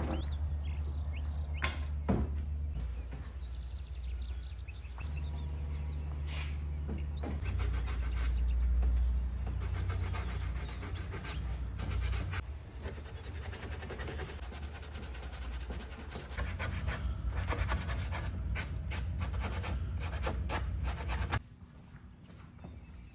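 Sanding on the chipped, flaking particle-board corners of dresser drawers: a continuous rasping scrape over a low steady hum, which stops abruptly near the end.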